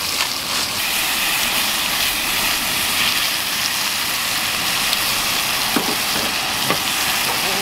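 Marinated steak sizzling in a cast iron skillet over a propane camp stove, a steady hiss, with a couple of light clicks of metal tongs against the pan in the second half.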